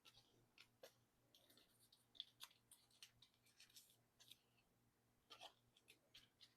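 Near silence, with faint scattered clicks and rustles of photo cards being handled.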